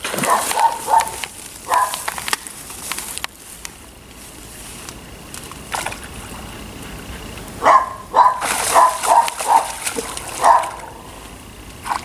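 A dog barking in short yelping barks: a few about half a second in, then a quick run of them from about eight to ten and a half seconds in.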